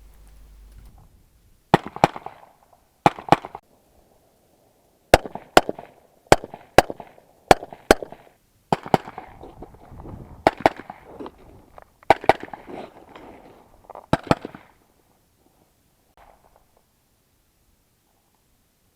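Suppressed S&W M&P15 AR-pattern rifle firing about sixteen shots, mostly as quick pairs a fraction of a second apart, with a few seconds between strings; the shooting stops about three-quarters of the way through.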